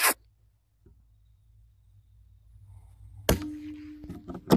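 A single .22LR shot from a CZ 452 bolt-action rifle about three seconds in, followed near the end by sharp metallic clacks as the bolt is worked. A short hissing burst right at the start.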